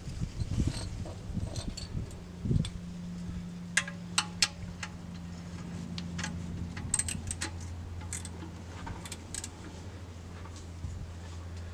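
Scattered metallic clicks and clinks of tools and parts being handled during an oil change, over a steady low hum.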